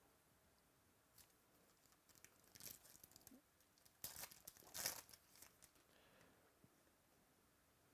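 Faint crinkling and tearing of a trading-card pack wrapper being opened by hand, in two short spells about two and four seconds in.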